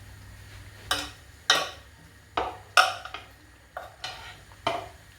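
Kitchen utensils knocking and scraping against dishes and pans: about six separate clinks and short scrapes, a fraction of a second each, with pauses between.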